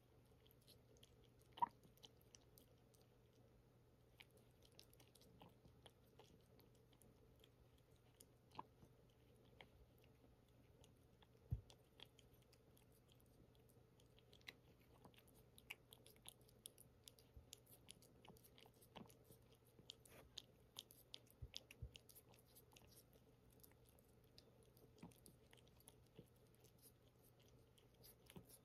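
Cat eating from a ceramic bowl: faint chewing and small wet mouth clicks throughout, busiest through the middle. Two louder knocks stand out, one under two seconds in and one about twelve seconds in.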